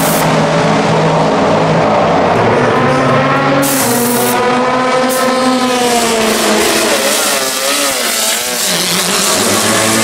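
Race car engines running at high revs, several notes overlapping and their pitch swelling up and down as cars go by.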